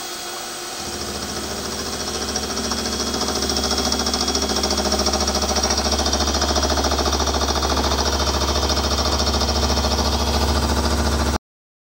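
Milling machine end mill taking a light facing cut, about two thousandths deep, across a metal faceplate that turns slowly on the stepper-driven harmonic-drive fourth axis. A steady, fast-pulsing cutting noise over a low hum starts about a second in, grows louder over the next few seconds, and cuts off abruptly near the end.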